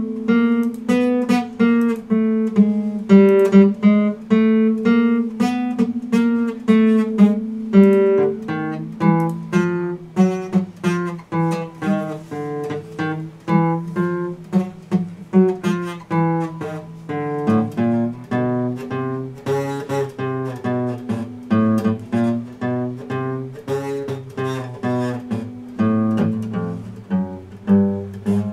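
Epiphone acoustic guitar played solo, with single notes picked one after another at a steady moderate pace over lower bass notes that ring on beneath them.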